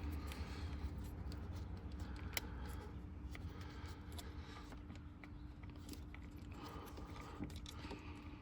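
Faint handling of a plastic wiring-harness connector as a terminal pin is worked into it: scattered light clicks and scrapes over a steady low hum.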